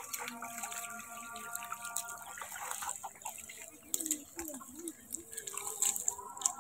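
Shallow water and wet mud splashing and dripping as a boy wades barefoot and pulls weeds from a pond bed, in small scattered splashes, with faint held tones underneath.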